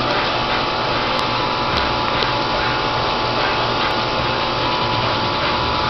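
A steady mechanical whir with a constant hum, from a motor or fan running nearby.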